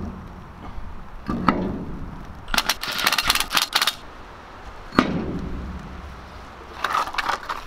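Cordless impact tool running lug nuts onto a trailer wheel in two short bursts of rapid hammering, with sharp metal clanks of wheel and nut handling between them.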